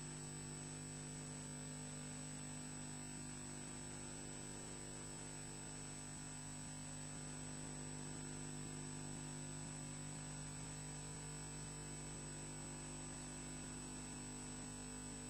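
Steady electrical hum and hiss from a nest camera's audio feed, with several unchanging tones and no bird calls.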